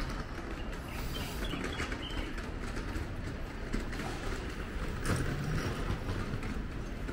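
City street ambience: a steady low hum of traffic, with small birds chirping a few times near the start and a brief louder rush about five seconds in.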